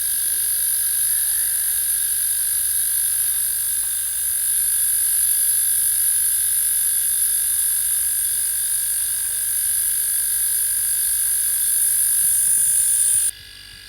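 Homemade electric air compressor running steadily with a high whine and hiss as it pumps air into its storage drum, the pressure building toward 20 psi. It cuts off suddenly near the end.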